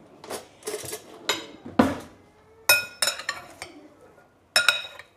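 Two metal utensils tossing potato salad in a glass bowl, clinking irregularly against the glass, with a few brighter ringing clinks about three seconds in and near the end.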